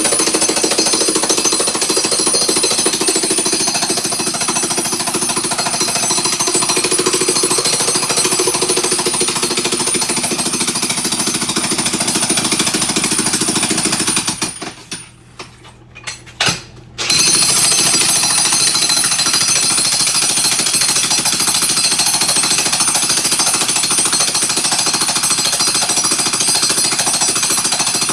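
Jackhammer breaking up floor tile, hammering steadily. It stops for about two and a half seconds a little past the middle, with one brief burst in the gap, then starts hammering again.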